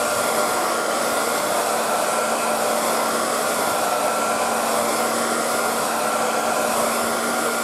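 Hand-held hair dryer running steadily, a rush of blown air with a steady whine, used to warm and soften a black plastic drip-irrigation supply pipe so it can be straightened.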